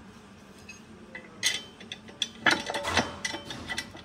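Steel parts of a Ridgid hydraulic pipe bender clicking and clanking as the ram end is lined up with the bending frame for its pin. The clicks come in a loose string, loudest a little past halfway.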